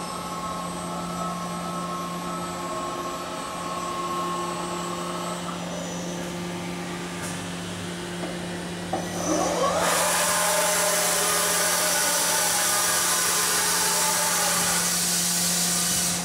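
Kuraki KBT-11WA CNC horizontal boring mill running through a program, with a steady machine hum and the whine of its axis drives as the table moves. About ten seconds in, a rising whine and a loud hiss start, and they hold for about six seconds before cutting off.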